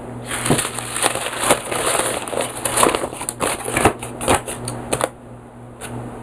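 Crumpled sheet of paper crinkling and crackling as it is handled close to the microphone, a dense run of crackles that stops about five seconds in, over a steady low hum.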